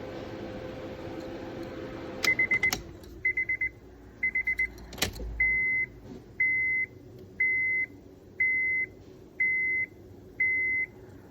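A steady hum cuts off about two seconds in. A quick run of short, high electronic beeps follows, then a sharp click, then six longer beeps at the same pitch, about one a second.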